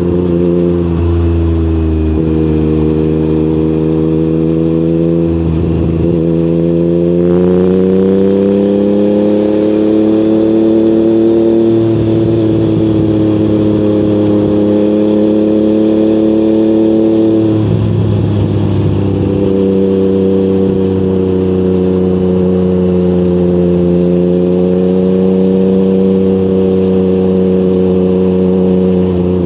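Yamaha MT-09's CP3 three-cylinder engine running through an Akrapovic exhaust while riding at moderate, fairly steady revs. The pitch climbs slowly and drops sharply a few times as the revs change.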